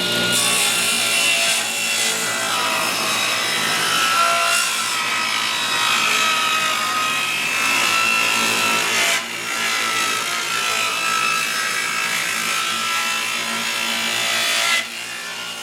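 Table saw cutting a groove into the edge of a wooden board, the blade set below full depth. The cut runs steadily with a brief dip about nine seconds in, and the loud cutting stops near the end, leaving the saw running more quietly.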